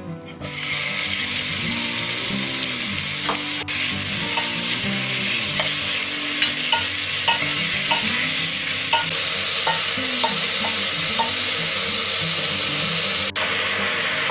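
Food frying loudly in hot oil in a pan, a dense steady sizzle that starts about half a second in, with light taps of a utensil as it is stirred. The sizzle briefly cuts out twice.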